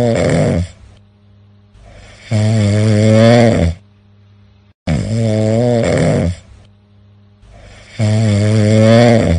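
A person snoring loudly and rhythmically. A long, low, buzzing snore starts about every two and a half seconds, four in all, with quieter breathing between.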